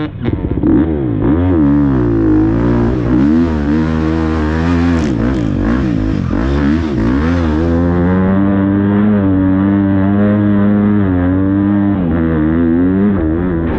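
Motocross bike engine revving and easing off over and over, its pitch swinging up and down every second or so as the throttle is worked, then holding steadier for a few seconds near the end.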